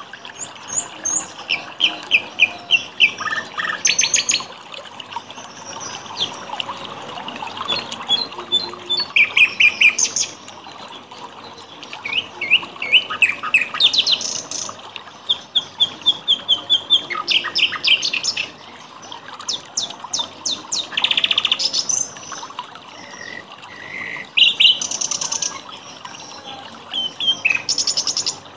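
Several songbirds chirping and singing, with quick trills and rapid runs of high notes overlapping one another, over a faint steady trickle of water.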